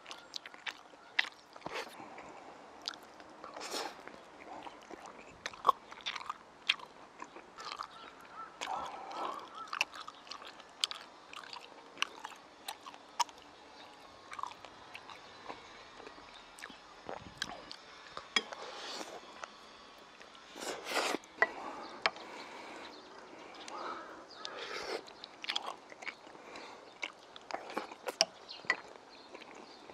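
A man chewing mouthfuls of stir-fried pepper and meat strips (gochu japchae) and soft steamed buns, with many irregular mouth clicks and smacks.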